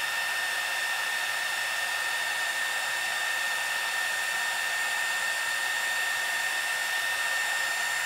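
Small 300-watt hot-air heat gun running steadily, a rushing airflow with a steady high whine, as it shrinks heat-shrink tubing over a soldered LED strip end.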